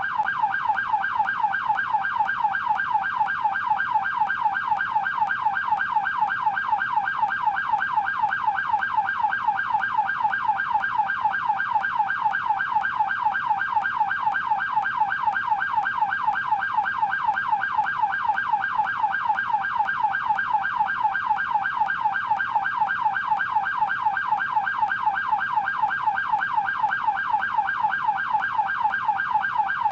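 Canadian police car siren in yelp mode: a continuous, rapid rising-and-falling wail repeating several times a second at an even level.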